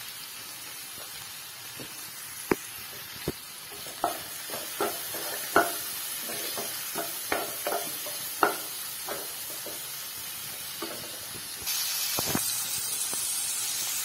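Chopped onion, tomato and ground spices sizzling in oil in a non-stick kadai while a wooden spatula stirs them, with a string of short clicks and knocks as it scrapes and taps the pan. The sizzling grows louder near the end.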